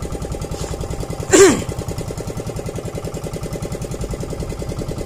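Bangka boat's engine running steadily under way while trolling, with a rapid even pulse. About a second and a half in, a short loud sound falling in pitch cuts across it.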